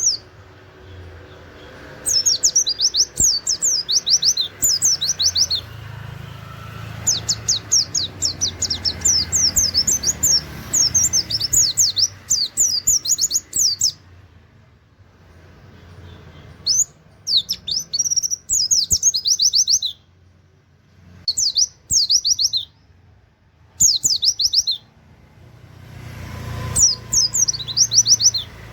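Pleci (white-eye) singing in rapid-fire 'nembak' bursts: quick strings of high, sweeping notes with canary-like phrases, each burst lasting a few seconds, with short pauses between them.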